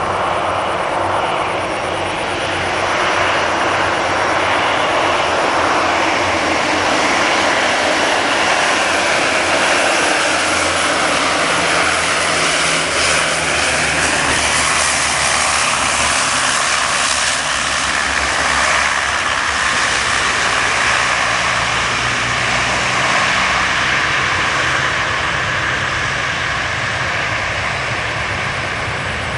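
A de Havilland Canada Dash 7's four PT6A turboprop engines and propellers droning as the airliner comes in to land, growing louder over the first few seconds and then holding steady.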